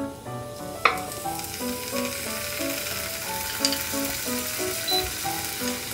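Halved deodeok (bellflower) roots sizzling in a lightly oiled cast-iron frying pan, the hiss building from about half a second in as the pieces are laid in. A couple of sharp clicks come through, the loudest about a second in.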